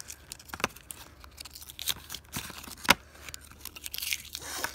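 Gold foil wrapper of a chocolate crinkling and crackling as it is peeled off by hand, with one sharp tap a little past halfway.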